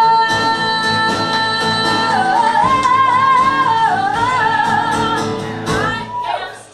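A woman singing a song: she holds one long high note for about two seconds, then moves through a winding run of notes, over instrumental accompaniment, and the sound fades near the end.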